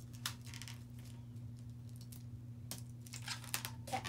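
Faint, scattered rubbing and clicking of hands handling an inflated latex twisting balloon, over a steady low hum.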